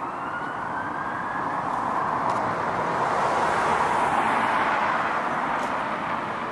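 A road vehicle passing: a steady rush of tyre and engine noise that swells to its loudest around the middle and then fades, with a faint whine rising in pitch during the first second or so.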